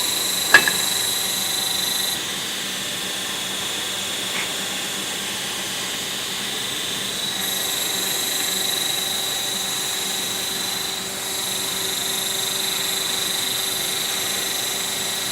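Linear welding machine running with a steady mechanical whine made of several steady tones over a hiss. There is a sharp click about half a second in. The sound drops slightly at about two seconds and comes back up at about seven and a half seconds.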